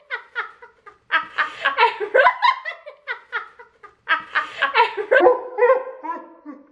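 Two young women laughing loudly and excitedly, in repeated high peals with a short lull around the middle.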